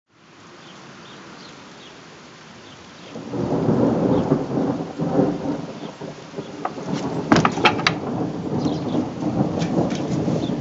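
Rain falling steadily with a soft hiss, then a long rumble of thunder that comes in about three seconds in and rolls on to the end, with a few sharp raindrop ticks around the middle.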